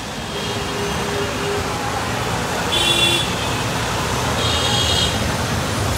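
Traffic on a wet road: a bus and motorcycles give a steady engine rumble and tyre hiss. Two short high horn toots come about a second and a half apart in the second half.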